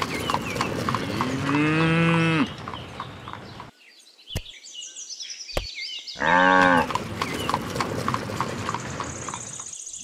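Horse hooves clip-clopping at a steady walk with a cow mooing, one long moo about a second in and a shorter, louder one past the middle. The hoofbeats stop for a few seconds near the middle and then resume.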